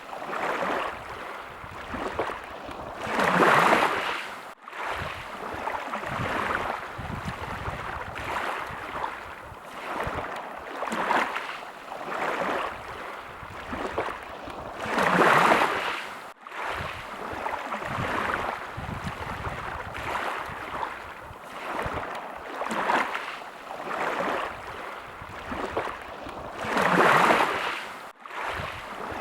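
Sea waves washing in and drawing back in repeated swells, a bigger surge about every twelve seconds.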